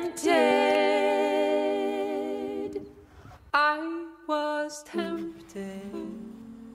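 Wordless a cappella singing voice: one long held note with a slight waver that fades over about three seconds, then three short notes, then a softer, lower hum near the end.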